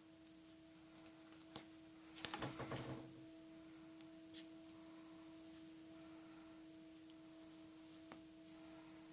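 Near silence with a steady faint whine, broken by a brief cluster of rustling and clicks about two seconds in and one sharp click a little after four seconds.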